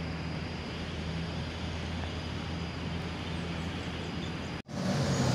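Diesel bus engine running steadily at low revs, a deep even hum. About four and a half seconds in the sound cuts out for an instant, then returns louder with more engine and traffic noise.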